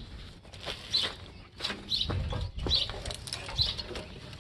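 Hand nippers cutting and prying at the metal of a scrapped air conditioning unit, with a few sharp clicks and scraping handling noise. A bird chirps over it about once a second.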